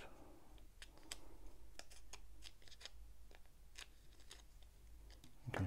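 Faint, scattered clicks and rustles of a small plastic diamond painting tray and its sellotaped paper wrapping being handled and pulled apart.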